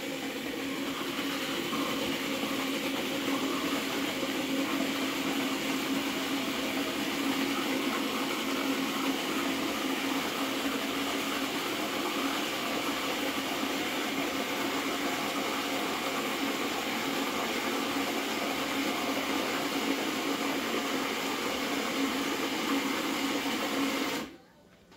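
Countertop blender running steadily, puréeing hot pepper and onion, with a constant motor hum; it is switched off about a second before the end and cuts out suddenly.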